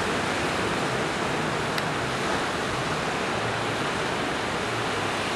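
Steady hiss of breaking surf and wash in the shallows, an even rushing noise with no rise and fall of single waves.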